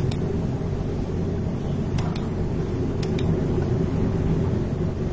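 A computer mouse clicking a few times, twice in quick pairs, over a steady low background rumble.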